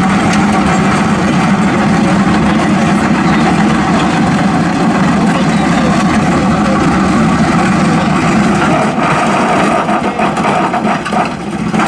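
Backhoe loader's diesel engine and hydraulics running steadily under load while its boom-mounted trencher cuts a narrow trench through soil. The sound turns uneven near the end.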